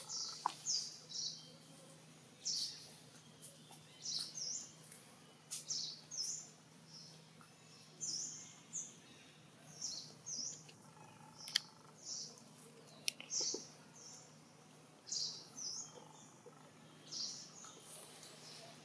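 Short, high-pitched chirping calls, repeated in twos and threes every second or two.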